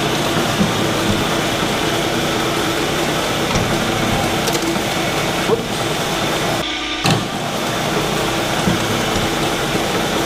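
Old milling machine running with its hydraulic table feed cycling: a steady machine hum as the table traverses. Two sharp knocks come a little past the middle, about a second and a half apart.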